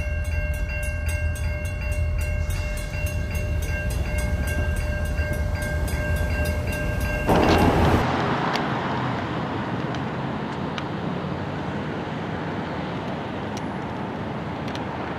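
EMD diesel switching locomotives rumbling at a level crossing, with a steady ringing tone over fast, even ticking, like a crossing signal bell. About seven seconds in comes a loud burst. After it the rumble and ringing stop at once, leaving a steady road-traffic hiss.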